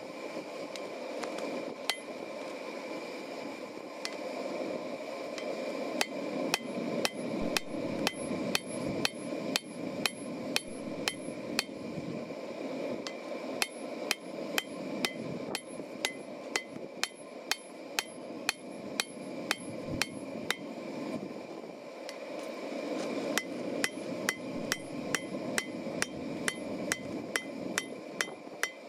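Hand hammer striking red-hot steel on an anvil: sharp metallic blows, a few at first, then steady runs of about two a second with short pauses between them.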